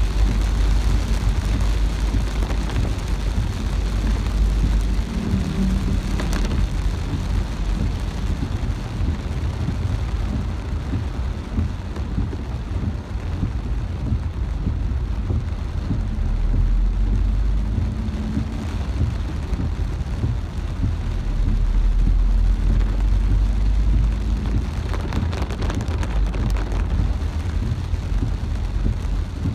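Heavy rain beating on a car's windshield and roof, heard from inside the moving car over a steady low rumble from the car driving on the wet road.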